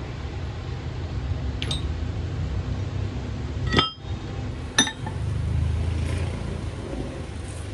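Three small sharp metal clinks, about 2 s, 4 s and 5 s in, the last the loudest, over a steady low rumble.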